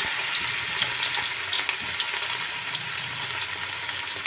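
Marinated fish piece frying in hot oil in a kadai: a steady sizzling hiss with many small crackles and pops.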